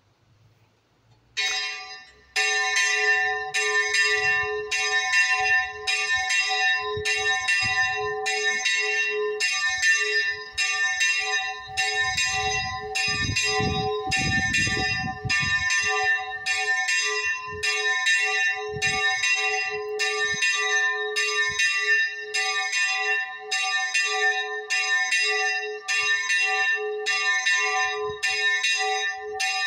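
Small church bell being swung full circle (Spanish volteo), sounding its first stroke about a second and a half in and then ringing with steady, evenly spaced strokes, somewhat faster than one a second.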